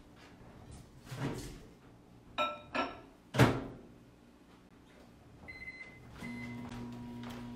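A microwave oven being loaded and started: two light ringing clinks, then the door shut with a loud knock, a few keypad beeps, and from about six seconds in the microwave running with a steady low hum.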